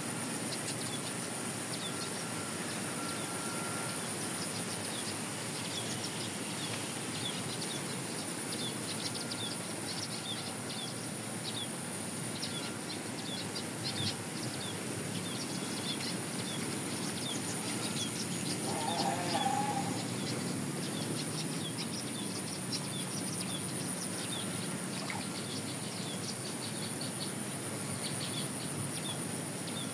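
Outdoor ambience of birds chirping over a steady hiss: many short, quick chirps scattered throughout, with a brief lower call about two-thirds of the way in.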